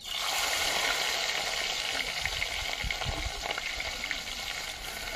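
Food dropped into hot oil in a kadai, sizzling loudly the instant it goes in and frying on steadily.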